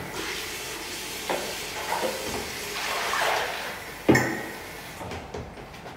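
Tap water splashing into a pink plastic cat litter tray as it is rinsed in a sink, with hollow knocks of the plastic tray against the basin, the loudest about four seconds in. The water hiss fades out near the end.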